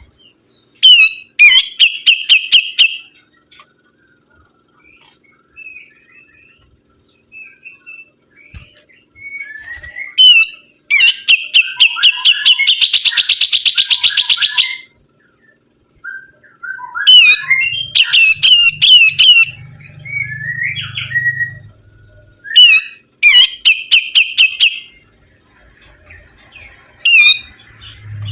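A sibuntung songbird singing loudly in bursts of rapid, sweeping chirps. One long, fast, even trill comes about halfway through, and shorter call notes fall between the phrases.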